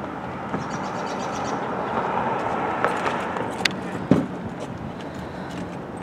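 A motor vehicle running, growing louder about two seconds in and then easing off, with a few sharp clicks and a heavy thump about four seconds in.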